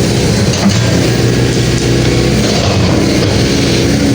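Hydraulic excavator's diesel engine running steadily close by, a low, even drone.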